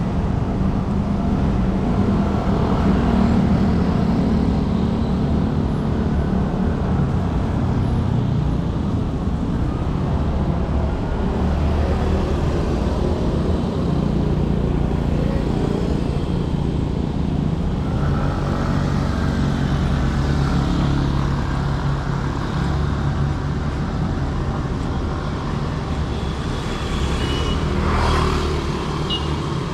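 Road traffic: engines of passing vehicles humming steadily, rising and falling as they go by, with a short sharper sound near the end.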